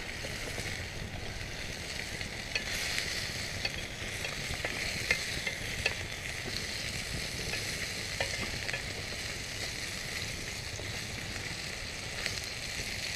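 Sliced sausage sizzling in a skillet over a campfire, stirred with a wooden stick, with a few light clicks.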